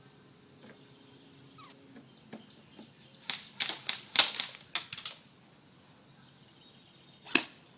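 Airsoft gun firing a quick run of about seven sharp shots, with one more shot near the end.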